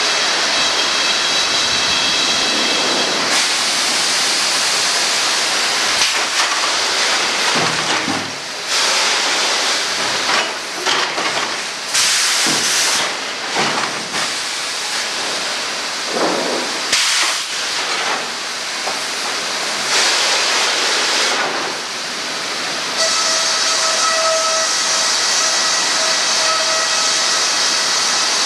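Sawmill machinery running: a loud, continuous hiss with a steady high whine. The sound surges and dips unevenly through the middle, and the whine returns steady near the end.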